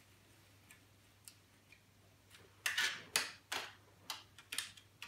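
Screwdriver and small metal parts clicking and tapping against a laptop. It is quiet with a couple of faint ticks at first, then from about halfway a quick run of sharp clicks, some briefly ringing.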